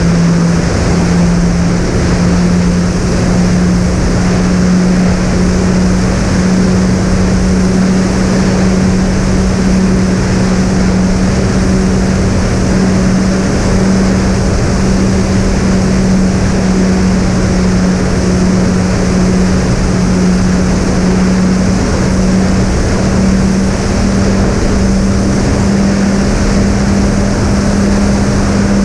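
Twin brushless electric motors and propellers of a fixed-wing plane running steadily in flight, a loud constant drone over a rush of wind noise. Near the start the two motors sound at slightly different pitches, then they settle onto one.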